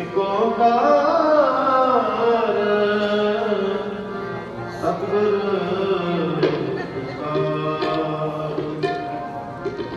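Sikh kirtan: a voice singing Gurbani hymns over the held tones of a harmonium, with tabla strokes coming in more often in the second half.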